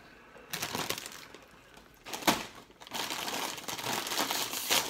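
Bag of chips crinkling and rustling as it is handled and the chips crushed, with one sharp crack a little over two seconds in.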